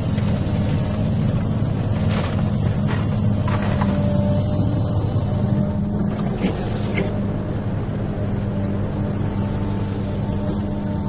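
XCMG excavator's diesel engine running steadily at working revs, with a few short knocks or scrapes from the machine working near the start and around the middle.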